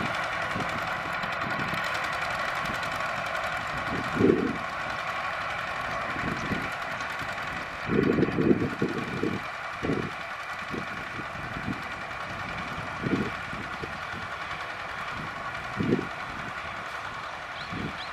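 Kubota walking tractors' single-cylinder diesel engines running steadily as they plow. A few brief low rumbles break in, the strongest about eight to nine and a half seconds in.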